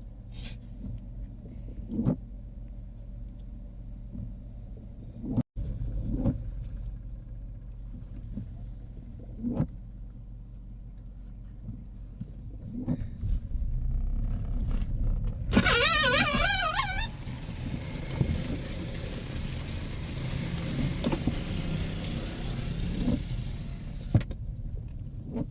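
Steady low drone of a car on the move, heard from inside the cabin, with scattered knocks. Past the middle a loud, even hiss of heavy rain joins in and lasts almost to the end, with a brief wavering squeal at its onset.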